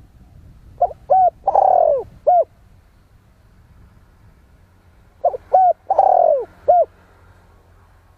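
Spotted dove cooing: two identical calls about four seconds apart, each two short coos, then a long falling coo and a short final coo.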